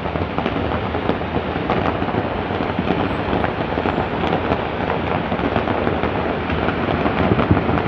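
Fireworks bursting in a dense, continuous crackle, with many small pops running together like rain and a few sharper single bangs standing out.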